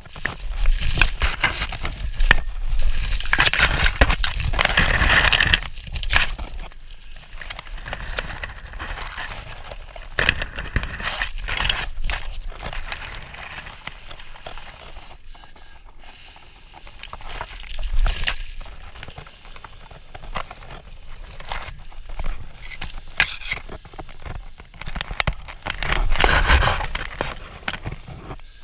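Dry leaves and twigs crinkling, crackling and rustling as hands crumple and arrange them into a fire lay, close to a wrist-mounted camera's microphone, with low handling rumble. The rustling comes in louder spells, and there are many short crackles throughout.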